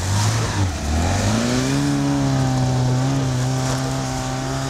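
Lada Niva's four-cylinder engine revving up about a second in, then held at high revs under load as the chained wheels spin and churn through snow.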